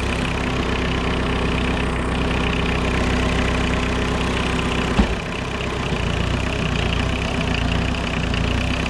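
A homemade tractor's Volkswagen 1.6 turbodiesel four-cylinder engine running steadily at idle. A single thump sounds about halfway through.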